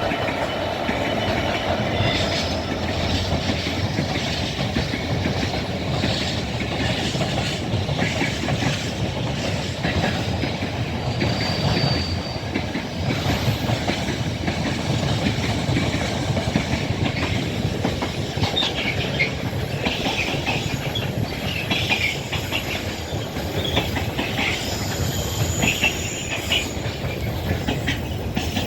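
Freight wagons of a double-headed Class 66 freight train rolling past, with steady wheel clatter over the rail joints and occasional high-pitched wheel or brake squeals, more frequent in the second half.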